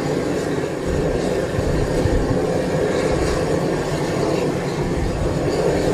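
Steady, loud rumbling drone of machinery on an airport apron around a parked jet, with an uneven low rumble underneath.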